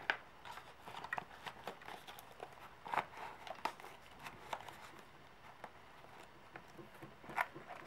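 Quiet, irregular clicks and paper rustling from cash envelopes and bills being handled, a little louder about three seconds in and again near the end.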